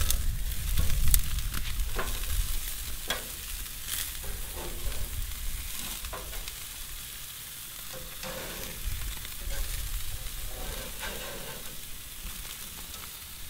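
Chicken thighs sizzling on the hot cast iron grates of a four-burner gas grill, with metal tongs clicking against the grates now and then as the pieces are flipped.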